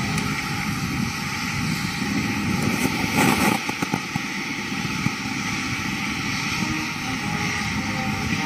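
A military band playing a national anthem, faint beneath a steady rushing noise of rain and a parked jet aircraft's engine; a brief louder flurry of knocks comes about three to four seconds in.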